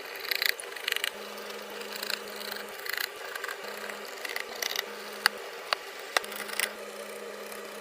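Computer parts being handled and fitted during a PC build: intermittent rubbing and scraping with several sharp clicks.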